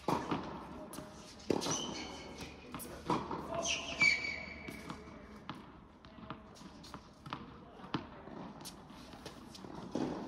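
Tennis balls bouncing on an indoor court, three louder knocks in the first three seconds and lighter taps after, ringing in the big hall. There are short high squeaks about two and four seconds in.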